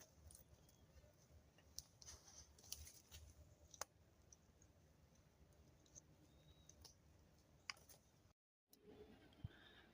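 Faint, scattered sharp clicks and ticks at irregular intervals, a few louder than the rest. The sound cuts out completely for a moment about eight and a half seconds in.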